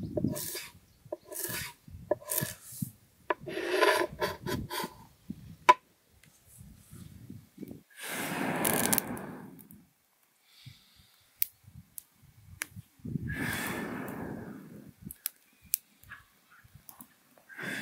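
A large knife chopping herbs on a wooden board in quick strikes, then two long breaths blown onto smouldering kindling, each about two seconds, with sharp crackles of twigs as the fire catches.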